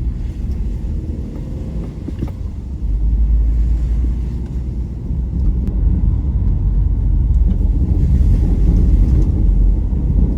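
Low rumble of a car heard from inside the cabin, driving a rough, potholed road, with a few light knocks from the bumps; it gets louder about three seconds in.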